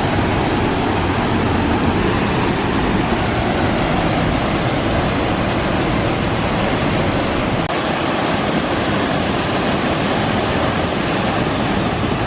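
Waterfall: a steady, loud, unbroken rush of falling water.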